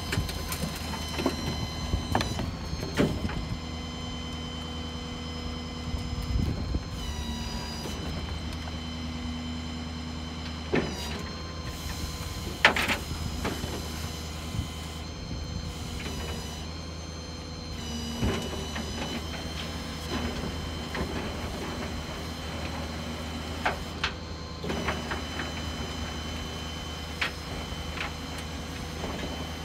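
Rollback tow truck unloading a burned-out car: the truck's engine runs steadily under a whine that steps to a new pitch every few seconds. Scattered clanks and scrapes come from the wreck and the tilted steel bed as the car creeps down it, the loudest a sharp clank about 13 seconds in.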